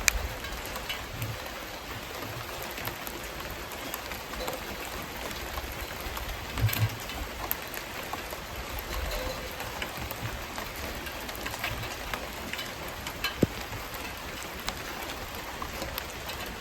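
Wood fire crackling: a steady hiss with scattered sharp pops and crackles.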